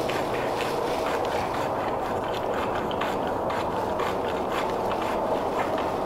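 Dry tinder bundle crackling and rustling as it is rubbed and twisted between gloved hands, many small irregular crackles over a steady hiss.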